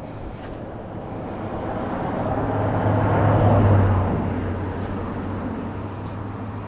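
A road vehicle passing on the bridge. Its engine hum and tyre noise grow louder to a peak about halfway through, then fade away.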